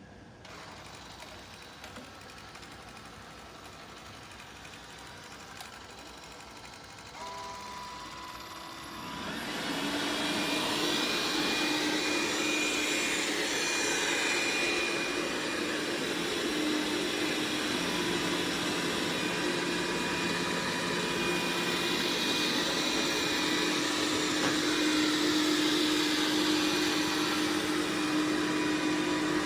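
MOVA S10 robot vacuum starting a cleaning run: a short run of stepped electronic tones, then a couple of seconds later its suction fan spins up about a third of the way in and runs steadily, a loud hum with a high whine.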